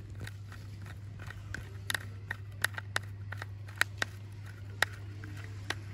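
Small screwdriver turning a screw into a plastic toy train's body: a run of irregular sharp clicks and ticks as the tip works the screw head, over a steady low hum.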